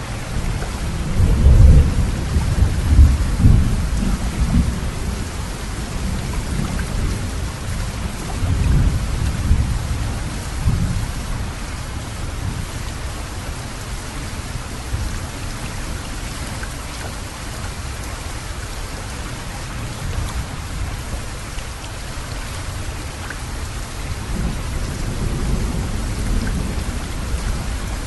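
Steady rushing of heavy water, with deep rumbles that swell and fade: the strongest a few seconds in, more around 9 to 11 seconds, and again near the end.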